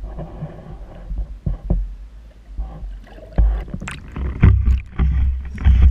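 Muffled knocks, clicks and water sloshing heard through an underwater camera's housing. It becomes louder and heavier about three and a half seconds in, as the camera is hauled up to the lake surface.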